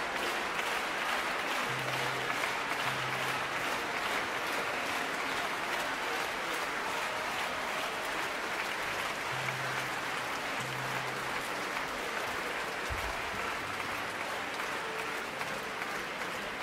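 A large concert-hall audience applauding steadily, easing off slightly near the end.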